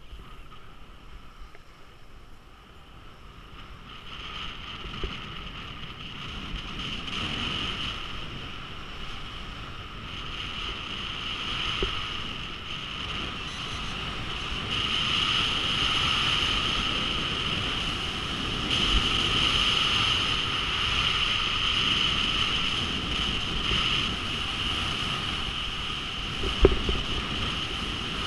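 Skis hissing and scraping over packed groomed snow, mixed with wind rushing over a head-mounted camera, growing louder over the first fifteen seconds or so as the skier picks up speed. A few short knocks break through, the sharpest one near the end.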